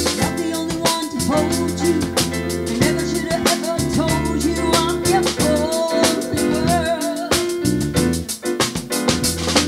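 Live band playing a soul-jazz groove: drum kit keeping a steady beat, electric bass and keyboard, with a woman singing over them.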